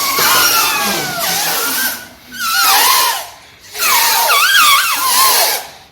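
Shrill, whistle-like squealing from a homemade paper-clip sound device, its pitch wavering and gliding over a breathy hiss. It comes in three bursts with two short breaks, one a little after two seconds in and one about three and a half seconds in.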